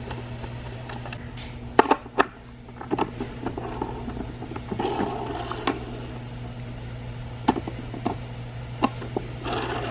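Handling noise from a skateboard truck being fitted together by hand, with its 3D-printed plastic hanger, bushing and metal pivot bolt: scattered sharp clicks and taps, a cluster of them about two seconds in, with light scraping over a steady low hum.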